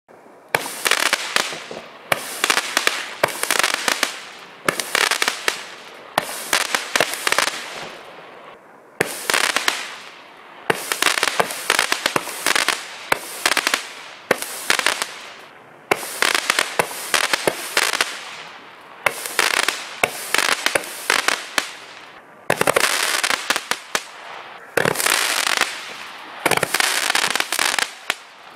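A 200-gram consumer firework cake firing its mine shots one after another, about one a second. Each shot is a sudden burst of sharp crackling pops that dies away before the next.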